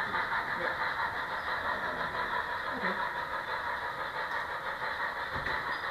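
HO scale model freight cars rolling steadily along the track, a continuous even rolling noise from the small wheels on the rails.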